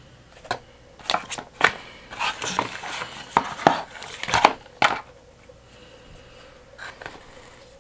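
Small cardboard toothpaste carton being opened by hand: a run of crinkling, tearing and sharp clicks for the first five seconds, then quieter handling with a couple of small clicks.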